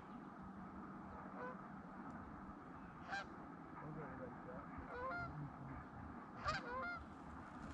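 Canada geese honking, scattered single calls and short runs of honks over a few seconds.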